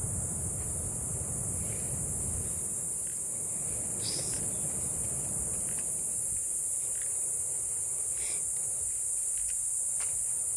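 Steady high-pitched buzzing of a tropical insect chorus, with a few faint short sounds about four and eight seconds in.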